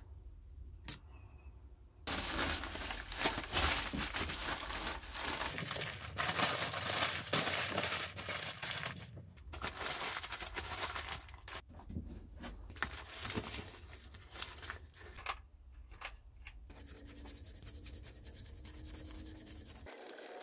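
Newspaper crinkling and crumpling as it is handled and wrapped around the sprinkler to mask it. There are bursts of rustling and tearing, and it turns to a quieter rustle near the end.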